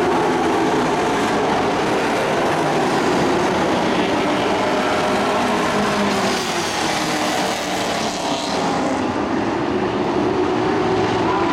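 Dirt-track race trucks' engines running hard around the oval, a steady loud drone whose pitch rises and falls as the trucks go through the turns.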